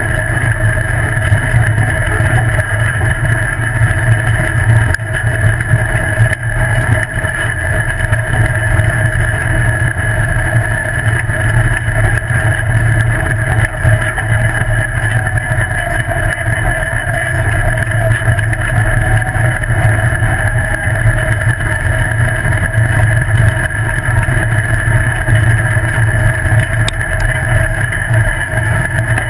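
Off-road buggy's engine running at a steady, nearly unchanging pitch as it drives along a dirt road, with rumble from the tyres on the rough surface.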